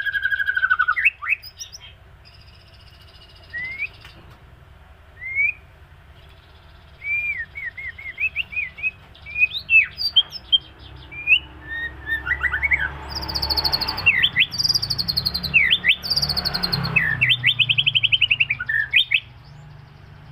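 White-rumped shama (murai batu) in moult singing. Short varied whistled phrases with sliding notes and rapid high trills, in bursts separated by brief pauses.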